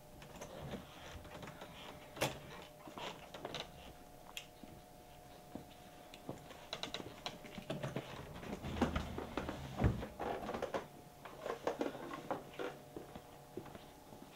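Irregular light clicks and knocks of a door being opened and people moving about and handling things, with a sharper knock about two seconds in and the loudest about ten seconds in, over a faint steady hum.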